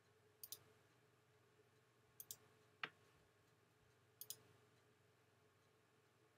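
Computer mouse clicking: three quick press-and-release double clicks spaced about two seconds apart, with one sharper single tick just before the middle, over a faint steady hum.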